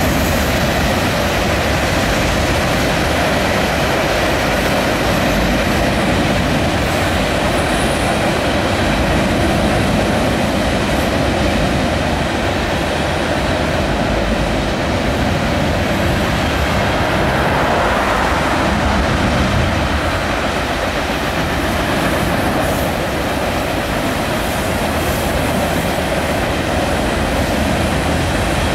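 A CSX freight train's cars rolling past at a steady speed: a continuous, even sound of steel wheels running on the rails.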